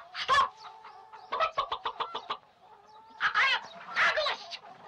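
Cartoon chickens clucking and squawking: a squawk right at the start, a quick run of clucks, then two drawn-out squawks near the middle and more clucks near the end.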